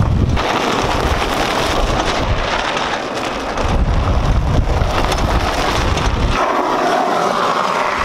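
A small utility cart driving past, off across the lot and back close again near the end, with wind on the microphone.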